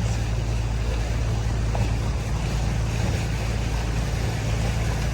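Sightseeing boat's engine running steadily with a low drone, under an even rush of wind and water.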